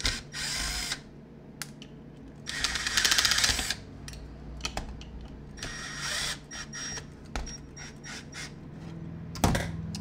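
Cordless drill-driver running in three short bursts on the screws of a metal sander housing, the longest and loudest about two and a half seconds in, with small clicks between. A sharp knock near the end.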